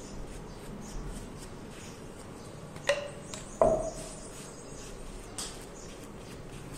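Faint rustling and light ticks of hands pressing adhesive tape onto snooker cloth, with two sharp knocks with a short ring about three and three-and-a-half seconds in, and a lighter tap near the end.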